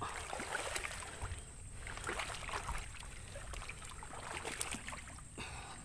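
Footsteps wading through shallow water and soft mud among dense water spinach, with irregular splashing and leaves rustling.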